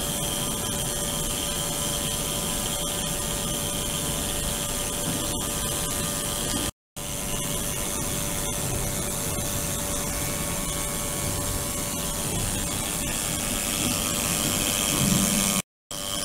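Ultrasonic tank of a 72 kHz, 300 W system running in water in a plastic (resin) container: a steady buzzing hiss with a few steady tones from the driven water and vessels. The sound cuts out briefly twice.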